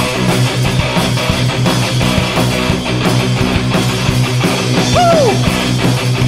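Rock band playing live in an instrumental passage: guitar, bass and drum kit come in together at the start after a brief break, with steady drum strikes. About five seconds in, a note slides down in pitch.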